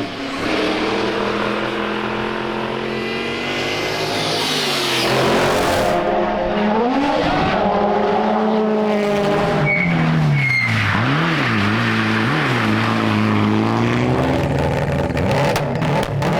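A rally car's engine at high revs on a stage, its pitch climbing and falling as it changes gear. Near the end the engine pitch drops and rises twice in quick succession, like throttle blips on downshifts.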